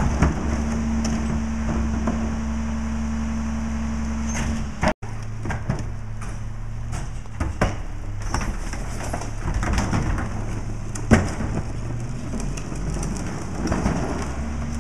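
Rear-loader garbage truck's diesel engine running steadily while trash carts are tipped into the hopper on the cart lifter, with scattered knocks and clatter of the plastic carts against the truck, the sharpest about eleven seconds in.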